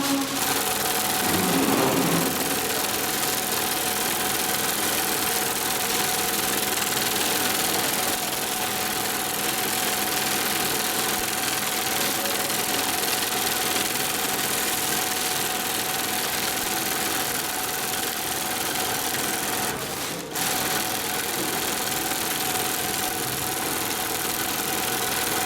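Sailmaster 72525-101 long-arm zigzag sewing machine running steadily at speed, with a faint steady tone from its drive. It pauses briefly about twenty seconds in, then runs on.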